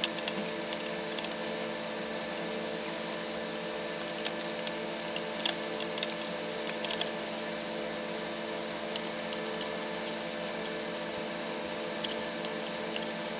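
Scattered light clicks and taps of small wires and tools being handled at a workbench, over a steady electrical hum.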